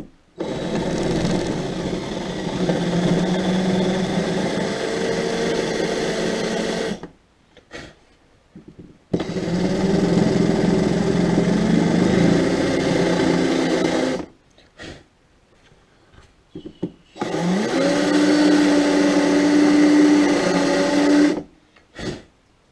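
A small electric power tool's motor running in three bursts of several seconds each, with short pauses between them. The last burst starts with a rising whine as the motor spins up.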